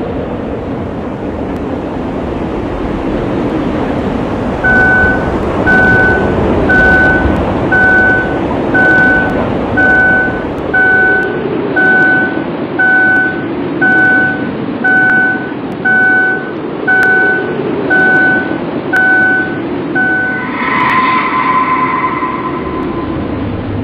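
Honda sedan's door-open warning chime beeping steadily, about once a second, sixteen times, over a rushing background of wind and road noise. A short, different ringing sound follows near the end.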